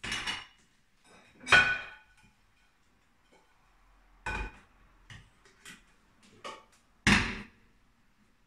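Metal cake mould and a ceramic plate knocking and clanking on a kitchen counter as a baked quesillo is turned out of its mould: several sharp knocks with a short metallic ring, the loudest about a second and a half in and again about seven seconds in, with lighter clicks between.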